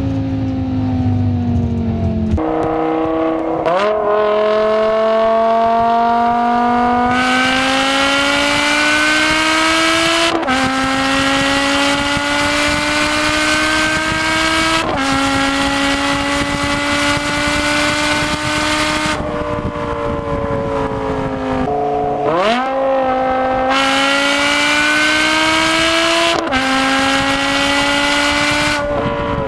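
BMW M6's 5.0-litre V10 with an Eisenmann race exhaust and straight pipes, accelerating hard through the gears. The pitch climbs through each gear and drops at each shift, several times over. It is very loud, and for the first couple of seconds it is heard at a steady cruise from inside the cabin.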